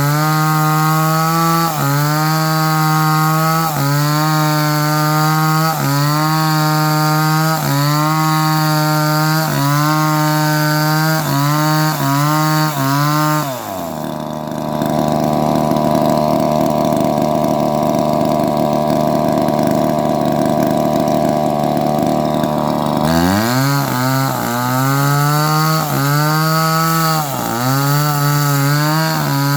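Two-stroke chainsaw running at high revs, its pitch dipping briefly about once a second. About halfway through it drops to a steady idle for around nine seconds, then is revved back up and the dips resume.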